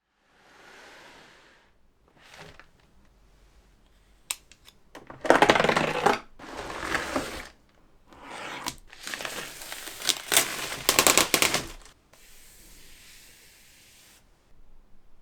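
A keyboard's retail packaging being opened by hand: irregular rustling and sliding of cardboard and wrapping, with a few sharp clicks. The loudest handling comes in two stretches, mid-way and toward the end, followed by a softer hissing rub.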